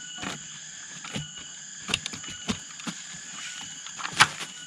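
A shovel digging into earth: about six irregular knocks and scrapes as the soil is loosened, the loudest near the end. Forest insects keep up a steady high buzz underneath.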